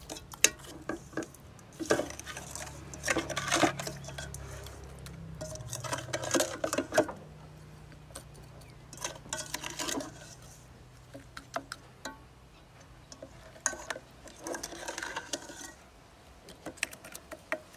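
Utensils clinking and scraping against a dish in short bursts, as a whole fish is stirred and turned in its marinade.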